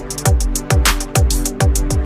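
Electronic background music with a fast drum-and-bass beat: sharp drum hits about four times a second over deep, falling kick drums.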